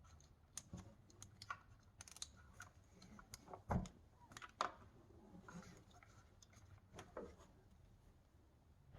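Faint, irregular small clicks and rustles of hands handling a plastic cable tie and wiring under the hood. The loudest click comes a little under four seconds in.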